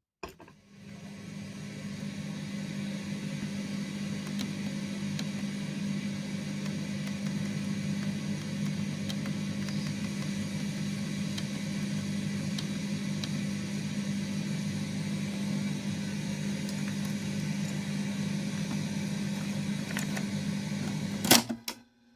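Daewoo AKF-4085 car radio-cassette player making a steady hum with hiss. The sound builds over the first two seconds, then holds level until a sharp click near the end.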